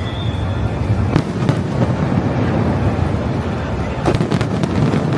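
Fireworks going off: a continuous low rumble of booms, with sharp cracks about a second in and a quick run of several cracks about four seconds in.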